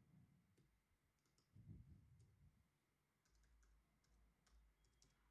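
Very faint computer keyboard typing: scattered key clicks, then a quicker run of them in the last two seconds, with a soft low thump about two seconds in.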